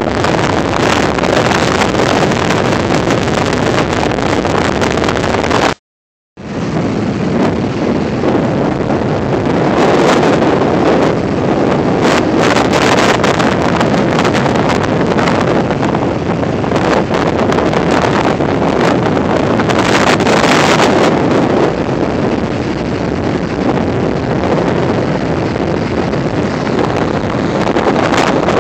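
Steady rushing of wind buffeting the phone's microphone, over the wash of ocean surf. The sound cuts out completely for about half a second around six seconds in, then comes straight back.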